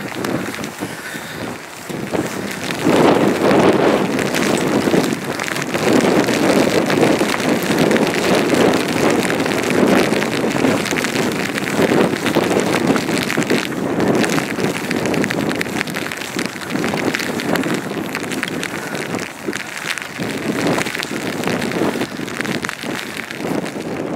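Wind buffeting the microphone in loud gusts, with rain pattering throughout.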